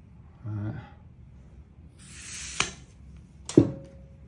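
Gas hissing briefly from a can into a gas blowback airsoft pistol magazine as it is charged, cut off with a click. A sharp knock with a short ring follows near the end as the gear is set down.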